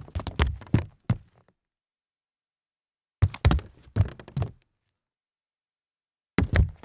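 Sneakers stumbling forward on a wooden floor: quick, uneven clusters of footfalls and scuffs, each about a second long. Three stumbles, with the third starting near the end.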